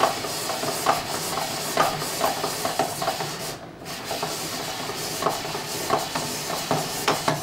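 Hand-crank spiralizer shaving a dense raw butternut squash into noodles: a continuous scraping rasp as the blade cuts, with irregular clicks and knocks from the turning crank and plastic frame, and a brief break a little past halfway.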